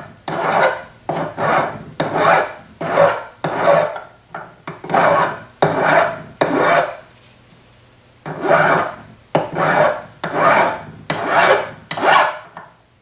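Hand file rasping along the edge of a sterling silver cuff blank in quick back-and-forth strokes, about two a second, rounding and tapering the edge. The strokes pause for about a second past the middle, then resume.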